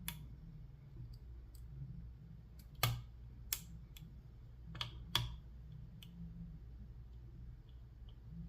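Assa Ruko 2 padlock with an Assa 500 core being single-pin picked: about seven sharp, irregular clicks from the pick and tension tool working the pins, loudest about three and five seconds in.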